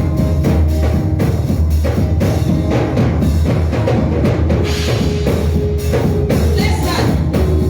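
Music with a steady drum beat and heavy bass.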